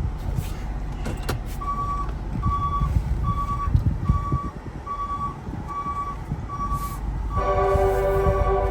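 A vehicle's electronic warning beeper sounding a single steady tone over and over, a little faster than once a second, over the low rumble of the Ford Transit van's running engine. Music comes in near the end.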